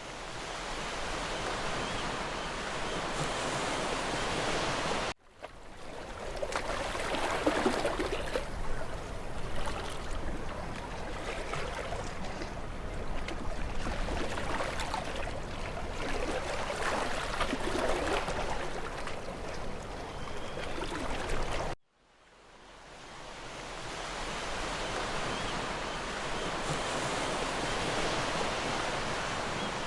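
Ocean surf: a steady rushing of waves. It cuts out abruptly twice, about five seconds in and again near twenty-two seconds, each time starting up again at once.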